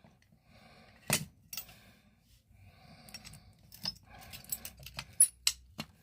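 A key ring jangling and a few sharp metallic clicks as a key is worked in the lock of an Indeco T-bar fire alarm pull station: one click about a second in, then several close together near the end.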